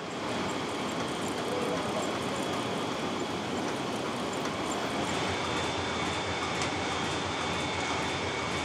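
Tea-factory sorting machinery running: a steady mechanical din with two faint high whines over it.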